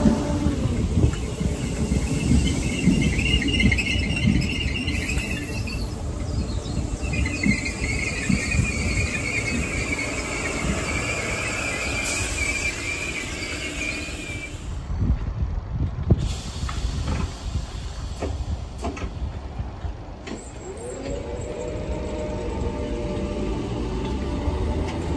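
Merseyrail Class 507 electric train at a station platform giving a high, wavering metallic squeal in two long stretches. Later its traction motors whine, rising in pitch as it pulls away.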